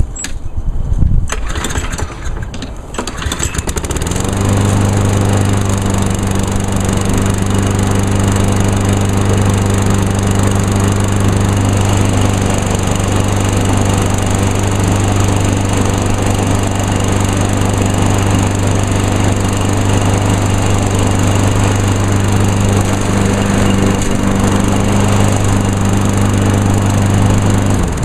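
2010 Craftsman EZ2Walk mower's 190 cc Briggs & Stratton engine being pull-started by hand, its electric start being dead. It catches about four seconds in, runs steadily, and stops near the end.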